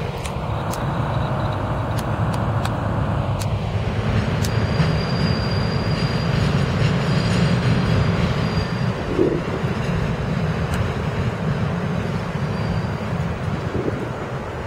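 NYC Subway 1 train of R62A cars running past on elevated track, a steady rumble of wheels on rail. A thin high squeal joins it for a couple of seconds about five seconds in, with a few sharp clicks before it.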